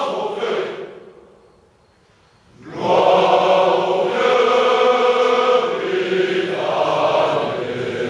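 A large group of young men's voices singing a traditional French song together. A phrase dies away about a second in, and after a short pause the singing resumes about three seconds in with long, held notes.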